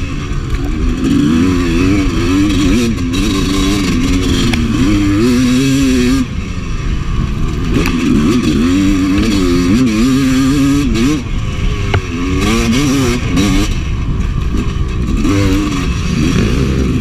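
Honda CR250 two-stroke dirt bike engine under hard riding on a trail. The throttle is rolled on and off constantly, so the engine pitch rises and falls every second or so, with a short lift off the throttle about six seconds in.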